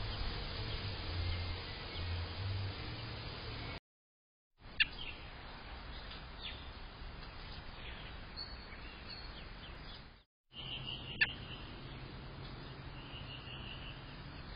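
Outdoor ambience with scattered thin bird chirps and short calls. The sound drops out twice for a moment between camera clips, and there are two sharp clicks, one about 5 s in and one about 11 s in.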